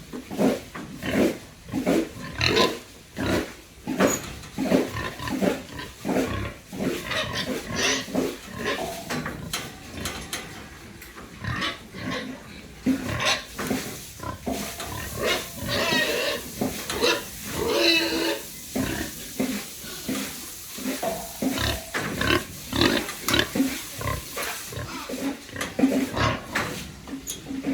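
Pigs grunting in a dense, uneven run of short calls, with a couple of longer, higher squeals around the middle.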